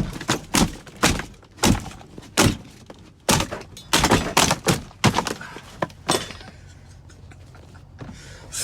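A quick, irregular series of thunks and cracking knocks as plastic dash parts are forced and broken loose from a truck's dashboard during the tear-down. The knocks stop about five seconds in and it goes quieter.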